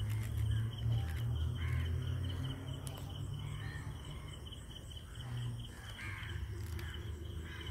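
Steady high insect trill, pulsing rapidly, with short bird calls every second or two over a low rumble on the microphone.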